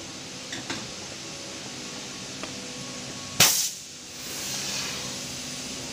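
A sudden loud burst of hiss about three and a half seconds in, dying away within half a second and followed by a softer hiss: compressed air let out of the slitter rewinder's pneumatic system. A few light clicks come earlier, over a steady machine hum.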